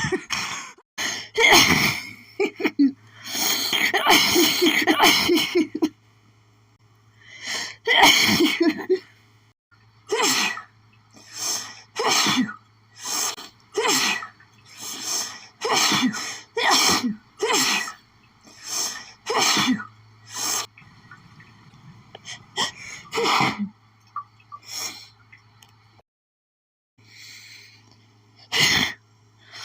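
A woman's harsh, hitchy allergy sneezing fit: a long series of sharp sneezes with hitching gasps between them. In the middle they come rapidly, about one a second for ten seconds, then thin out to a few more.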